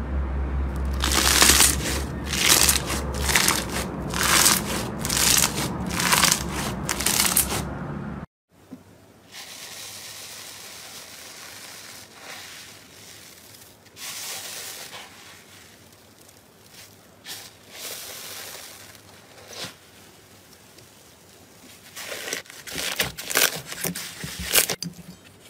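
Foam-bead slime being handled, with a rapid run of loud crackling pops from the beads. After a sudden cut about 8 s in, fluffy slime is pressed and pulled in a metal bowl, giving softer, sparser crinkling that grows louder near the end.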